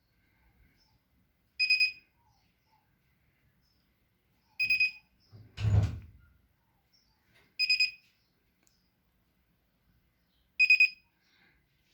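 Whirlpool Duet WFW9150WW01 front-load washer's control beeping: a quick high triple beep that repeats about every three seconds while the washer won't power on, which the owner takes for a failed control board. There is one low thump about halfway through.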